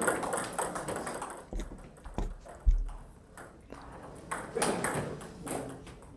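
Table tennis balls clicking as they bounce on the tables and floor, with a single dull low thump about two and a half seconds in.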